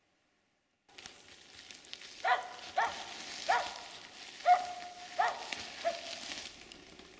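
Finnish spitz barking: six sharp, high barks about one every 0.7 s, the fourth the loudest, over a steady hiss. It is the repeated bark of a tree-barking bird dog announcing a bird sitting up in the trees.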